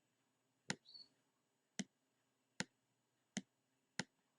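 Computer mouse button clicking: five single, sharp clicks spaced roughly a second apart, with near silence between them.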